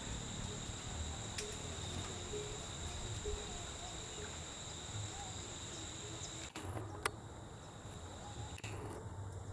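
Steady high-pitched insect drone in forest undergrowth over a low rumble. The sound dips suddenly about six and a half seconds in, and a single sharp click follows half a second later.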